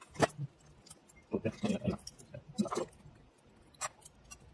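Small tools and metal parts handled on an opened iPhone 6: a sharp click about a quarter second in, clusters of light taps and scrapes around the middle, and another click near the end.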